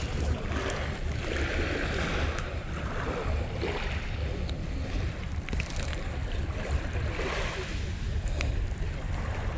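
Small waves washing onto a pebble beach, the surf swelling and fading every couple of seconds, with wind buffeting the microphone as a steady low rumble.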